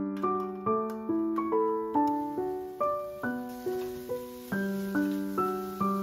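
Background piano music: a gentle melody of single notes, each struck and fading away, over slow low notes.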